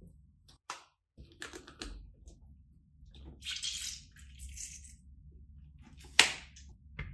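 Food-preparation handling sounds: soft rustling and wet squishing broken by small knocks, with one sharp knock about six seconds in.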